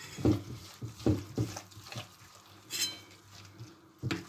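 A hand mixing a wet onion-and-spice chermoula in a glass bowl: short knocks and rubbing against the glass, with a brief clink a little before three seconds in.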